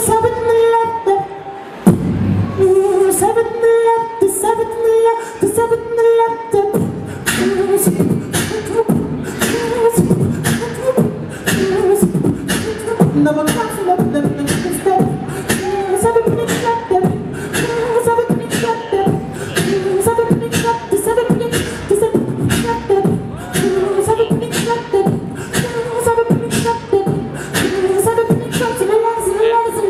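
A solo beatboxer performs through a handheld microphone and PA, mixing mouth-made drum sounds (kicks, snares, hi-hat clicks) with a hummed melody line. About seven seconds in, the sparse opening turns into a steady, fast beat.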